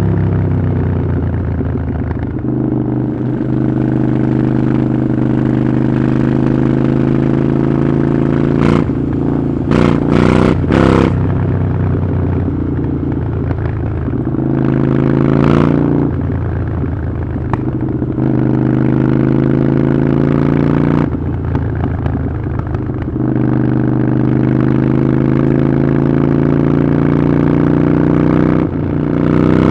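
Harley-Davidson Iron 883's air-cooled V-twin running through a Vance & Hines aftermarket exhaust, held at a steady engine speed with the pitch falling at the start and rising again near the end. A few short sharp crackles come about ten and fifteen seconds in.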